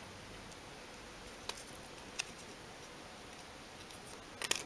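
A few sharp clicks and taps of small plastic toy parts being handled, over a steady background hiss: single clicks about one and a half and two seconds in, then a quick cluster of clicks near the end.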